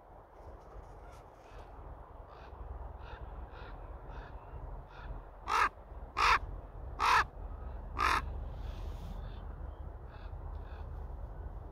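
Common raven calling. A run of soft short calls is followed by four loud calls in the middle, spaced roughly a second apart, and then more soft calls.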